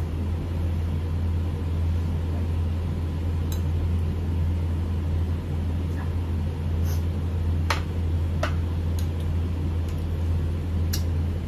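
A steady low hum in the room, with a scattering of short light clicks and clinks of a spoon on plates as people eat.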